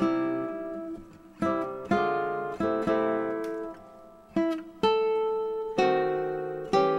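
Background music: acoustic guitar, with chords or notes struck about once a second and left to ring out.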